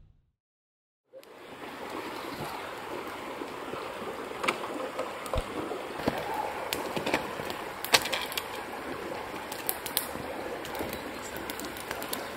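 Longboard wheels rolling on asphalt: a steady rushing noise with scattered sharp ticks, starting about a second in after dead silence.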